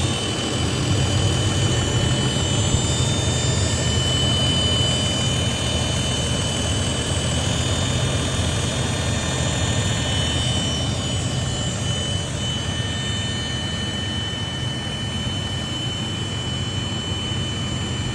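Toyota Land Cruiser 80 series running, a steady high-pitched whine sitting over a low rumble: the whine the owner is trying to track down.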